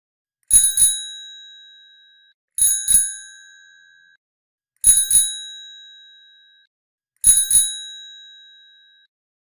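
Bicycle bell rung four times, about every two and a half seconds. Each ring is a quick double ding-ding that fades out over a second or two.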